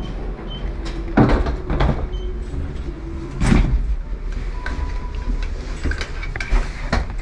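Lift doors sliding shut, with several knocks and rustles from bags and the handheld camera bumping around, over a steady low hum.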